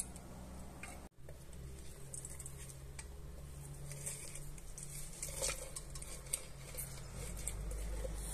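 Half a lemon pressed and twisted by hand on a plastic hand juicer: wet squelching and many small crackles and clicks of peel and plastic, densest in the middle, over a low steady hum.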